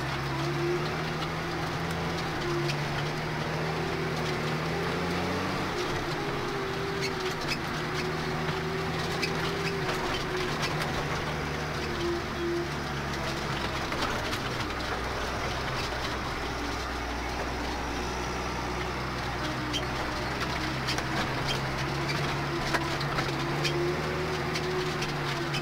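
New Holland T6050 tractor engine running steadily under load as the tractor drives over rough ground, its engine note dropping about six seconds in. Frequent light clicks and rattles sound through it.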